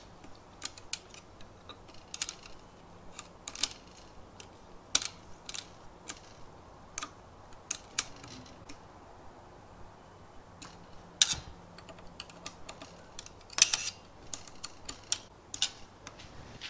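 Irregular sharp clicks and taps of hard plastic as a plastic cable drag chain is handled and fitted at its bracket on a stepper motor, with a few louder clicks about 11 and 14 seconds in.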